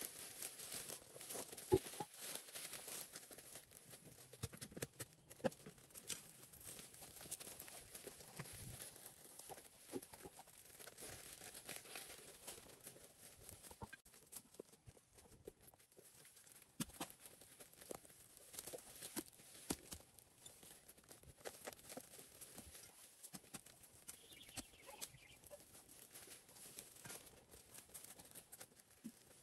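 Faint, irregular rustling with scattered light clicks and knocks throughout, from hand clearing work.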